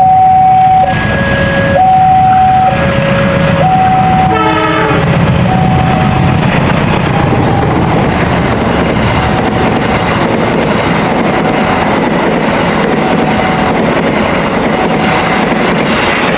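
Railroad crossing alarm ringing in two alternating tones, about one a second. About four seconds in a train horn gives a short blast, then the train passes through the crossing with a steady heavy rumble and wheel noise while the alarm keeps ringing underneath.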